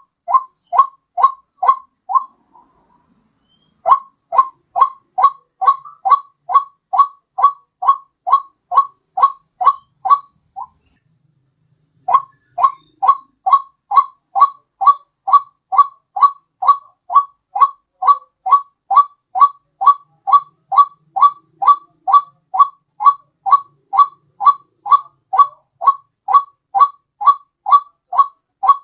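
White-breasted waterhen calls on a bird-lure recording: a monotonous run of short, loud notes, about two a second, each bending down in pitch. The run breaks off twice, about 2.5 s and 10.5 s in, for a second or two each time.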